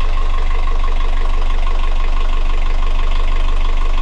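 Yanmar marine diesel engine idling, loud and close, with a steady high-pitched tone running over it.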